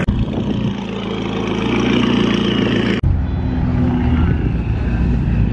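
McLaren 570S's twin-turbo V8 running as the car drives past at low speed, getting louder around two seconds in, with a brief break about three seconds in.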